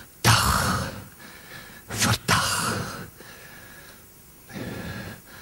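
A man's heavy, strained exhalations close on a handheld microphone: two loud ones about two seconds apart, then a fainter one near the end.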